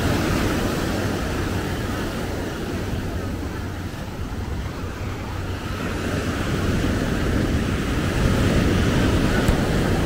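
Ocean surf washing onto a beach, a steady rushing that eases about halfway through and builds again near the end, with wind rumbling on the microphone.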